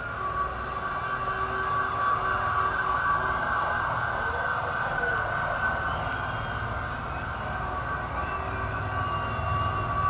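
Live concert music in an arena: a sustained synthesizer chord with long held high notes that stay steady in pitch, one sliding down near the end, over a low rumble from the crowd.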